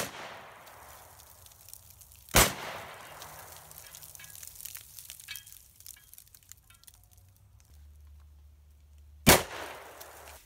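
Mossberg JM Pro 12-gauge shotgun firing three shots, the first two about two and a half seconds apart and the third some seven seconds later, each with a decaying tail. The first two shots strike a steel spinner target.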